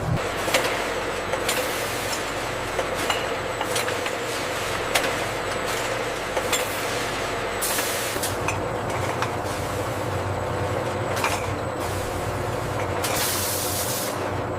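Pharmaceutical production-line machinery running steadily, with frequent sharp clicks and two hissing bursts of air, the second longer, about halfway through and near the end.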